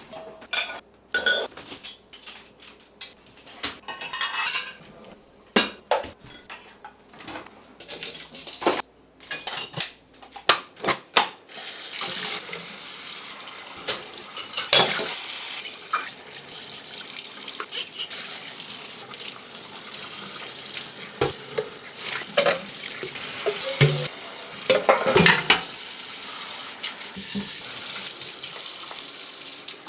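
Dishes and cutlery clattering at a kitchen sink, then a tap turned on about eleven seconds in, running steadily while dishes clink under it.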